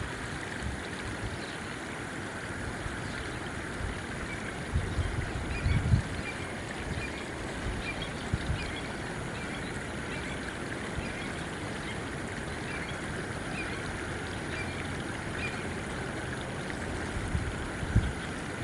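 Steady rushing of a nearby stream, with gusts of wind buffeting the microphone about five to six seconds in and again near the end.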